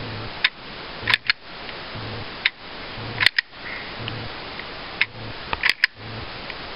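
H&K USP 45 pistol being dry-fired: about ten sharp metallic clicks, several in close pairs a fraction of a second apart, from the trigger breaking and the sear resetting as the trigger is released, over a steady hiss.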